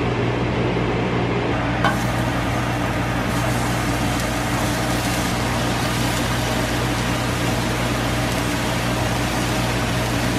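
Steady humming hiss of a kitchen range, with the over-the-stove vent fan running and the gas burner lit under a frying pan. A single light click comes about two seconds in.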